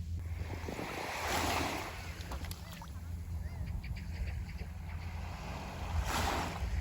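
Sea waves washing up on the shore: a rush of surf swells about a second in and again near the end, over a steady low wind rumble.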